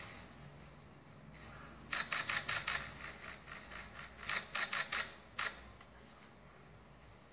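Camera shutters clicking in quick bursts: a rapid run of about six clicks some two seconds in, another run of four or five a little past the middle, then one single click.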